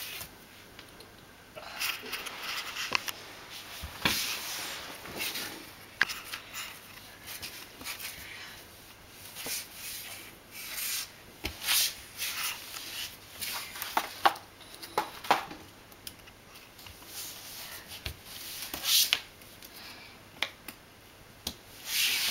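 Cardboard floor-puzzle pieces slid, rubbed and tapped against a wooden floor by hand, in irregular scrapes and light clicks.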